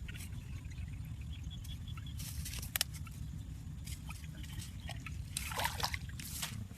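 Water trickling and dripping, with splashes about two and a half seconds in and again near the end, over a steady low rumble.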